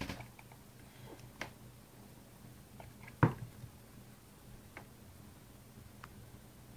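Steady low hum with a few scattered faint clicks and one sharp knock about three seconds in.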